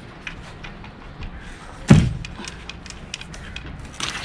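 A solar panel's metal frame knocking once, loudly, against a stack of panels as it is leaned into place, about two seconds in, with light taps and clicks of handling around it.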